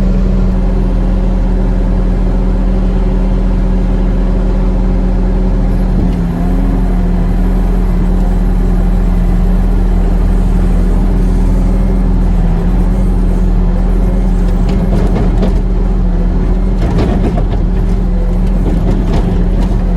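Farm machine's engine running steadily close by, with a brief dip in engine speed about six seconds in and some knocks and clatter in the last third, while the manure spreader is being loaded.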